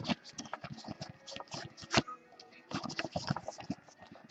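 Football trading cards being handled and flipped through by hand: a run of soft, irregular ticks and clicks as the cards slide and snap against each other.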